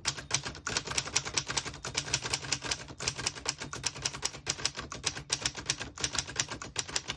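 1927 Underwood four-bank portable typewriter being typed on steadily, a fast run of key clacks, several strokes a second, as the typebars strike the platen.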